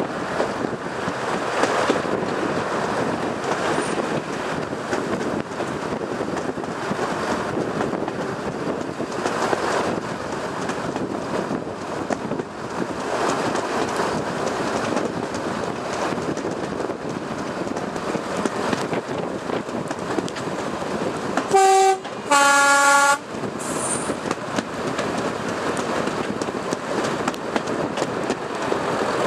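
Class 108 diesel multiple unit running along the track with a steady rumble and rattle; about three-quarters of the way through its two-tone horn sounds, a short high note followed by a longer lower note.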